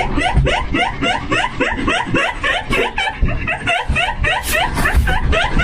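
Continuous rapid laughter: short, high-pitched rising laughs, about five a second, with no break.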